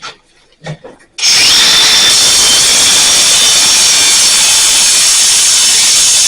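A few light clinks, then a power tool's motor starts about a second in: it spins up with a rising whine and runs loud and steady.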